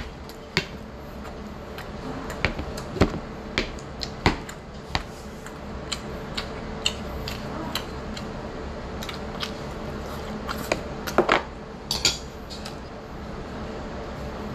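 Metal chopsticks clicking and scraping against a ceramic plate and a small saucer while picking up sweet-and-sour pork: scattered sharp clicks, a cluster of several a little after eleven seconds, over a steady faint hum.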